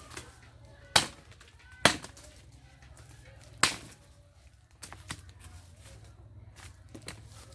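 Wood being chopped with a blade: three loud, sharp strikes in the first four seconds, then several lighter knocks.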